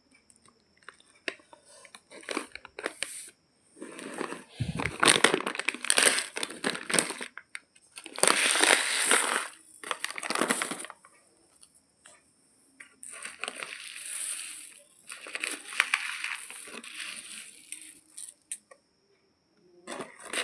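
Crinkly plastic rice bag crackling as it is handled, and raw basmati rice grains spilling and rattling onto a steel plate, in irregular bursts with pauses between them.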